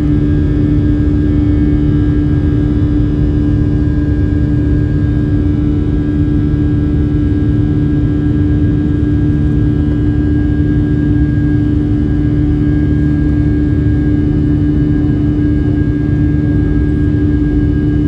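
Boeing 757-300 cabin noise in the climb just after takeoff: the turbofan engines running at climb power, heard through the fuselage as a steady loud rumble with a constant low hum tone.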